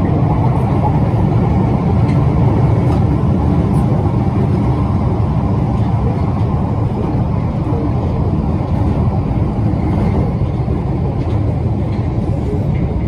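London Underground 1972 Stock tube train running at speed through a tunnel, heard from inside the carriage: a loud, steady, deep rumble of wheels on rail echoing off the tunnel walls, with a few faint clicks.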